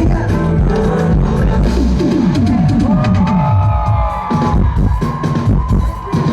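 Loud live Afrobeats concert music over a PA, with a drum and bass beat. About two seconds in a run of falling notes sweeps down, and high notes are held over it until near the end.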